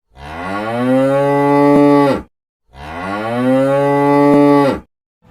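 A cow mooing twice: two long, loud moos of about two seconds each with a short pause between, each holding its pitch and dropping off at the end.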